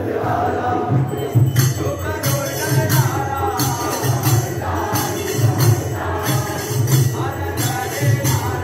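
Live group music: a drum keeping a steady beat, sharp jingling percussion strokes about twice a second, and voices singing.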